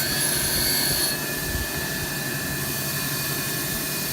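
A power tool running steadily, a constant hiss with a high whine.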